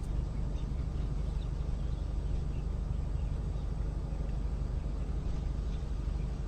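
Steady low rumble of outdoor background noise picked up by a doorbell camera's microphone, with faint short chirps scattered through it.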